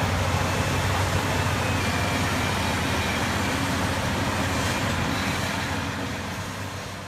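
Heavy diesel engines of a Komatsu D155X crawler bulldozer and a Caterpillar 631E scraper running steadily under heavy load as the dozer pushes the scraper, fading out near the end.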